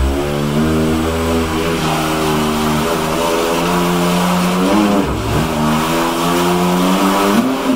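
Pair of new electric motors, rated 12,000 RPM at 12 V, running hard in a 3D-printed RC jet boat, spinning the jet impeller and churning water, with a loud steady whine. Its pitch dips and climbs back about five seconds in, rises again near the end, and then cuts off abruptly.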